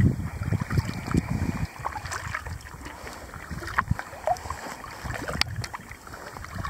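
Wind buffeting the microphone in low gusts for the first second or so, then easing, over small splashes and drips of water around a kayak on the river.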